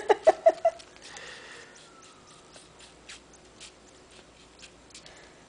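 Kitten suckling on bare skin: faint, wet sucking clicks at an irregular pace. A short burst of laughter sounds at the very start.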